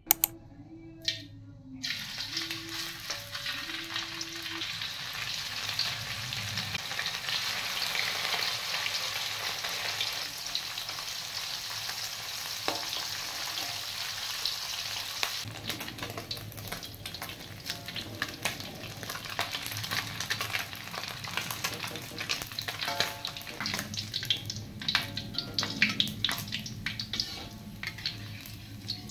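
Fresh anchovies frying in hot oil in a steel wok, a steady sizzle. About halfway through the sizzle drops and a metal spatula and ladle scrape and clink against the wok in quick short clicks as the fish are stirred and scooped out.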